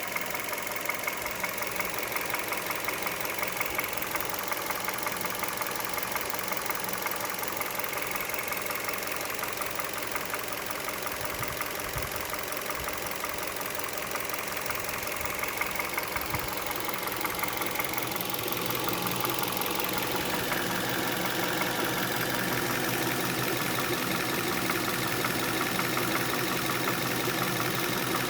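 Hyundai G4FC 1.6-litre four-cylinder engine running hot at idle after a brief rev, with a light, regular knock that the owner is recording to diagnose. The sound gets louder about two-thirds of the way through.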